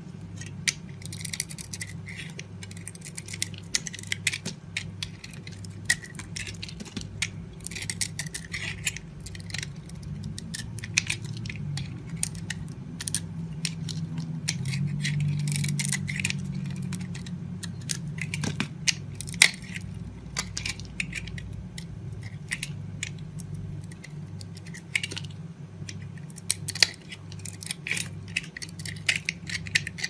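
A knife blade carving dry soap: crunchy crackling and scraping as chips and curls break off, in quick irregular clicks, with a low hum underneath that swells a little about halfway through.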